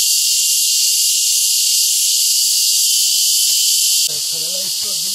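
Loud, steady, high-pitched insect chorus drone, filling the upper range evenly. About four seconds in it drops abruptly in level and a voice begins.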